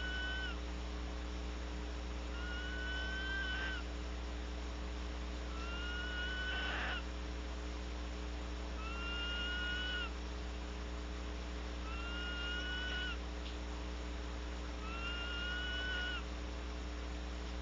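Barn owl calling in the nest box: a long, slightly rising screech repeated about every three seconds. Some calls end in a short rasp. A steady electrical hum runs underneath.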